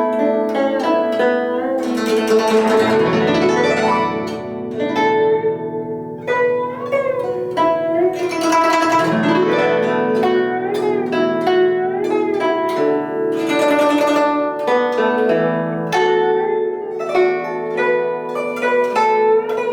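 Instrumental music on a plucked zither, with notes bent in pitch and several fast sweeping glissandos over sustained low notes.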